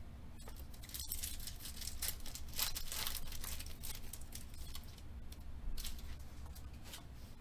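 Foil wrapper of a Panini Select trading card pack torn open and crinkled by hand, an irregular crackle that is densest in the first half and comes again briefly near the end.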